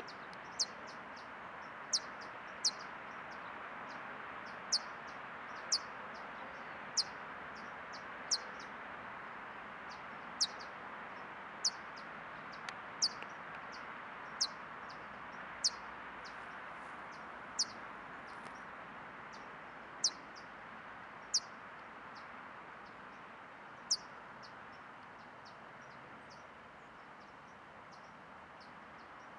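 Hummingbird giving sharp, high single chip notes at irregular intervals, about one every one to two seconds, which stop a few seconds before the end. A steady low background hiss runs underneath.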